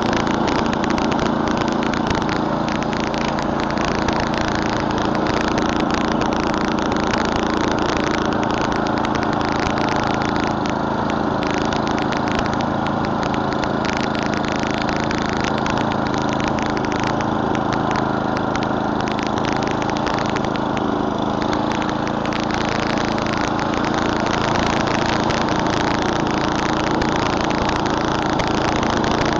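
Murray Select snowblower's 11 hp Tecumseh single-cylinder engine running steadily at a constant speed.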